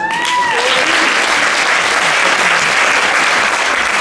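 Theatre audience applauding steadily after a dance solo.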